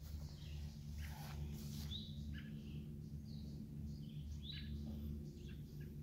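Small birds chirping in short, scattered calls, some with quick pitch sweeps, over a low steady hum.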